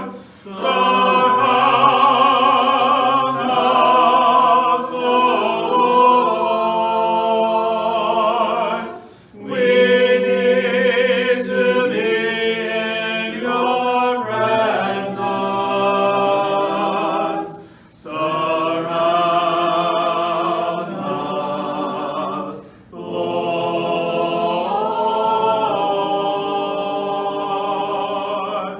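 A cappella choir singing a hymn in parts, in several sung phrases with short breaks between them.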